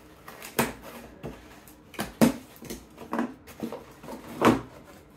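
Cardboard boxes being handled and pulled out of their shipping box: several short knocks and rustles of cardboard, the loudest about two seconds in and near the end.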